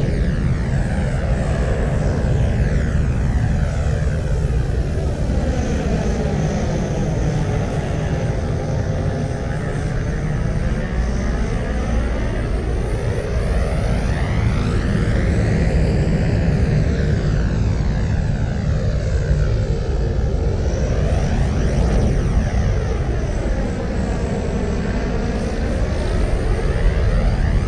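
Interior engine sound effect of the Star Wars Trade Federation MTT (Multi-Troop Transport): a steady, dense low rumble, built as a loop, with a slow sweeping whoosh in the upper sound that rises and falls every several seconds.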